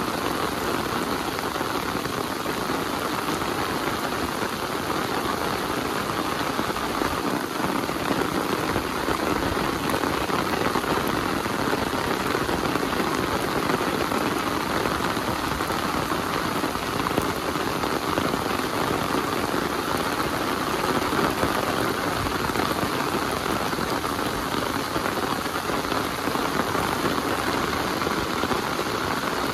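Heavy rain falling steadily: a dense, even patter of drops striking surfaces.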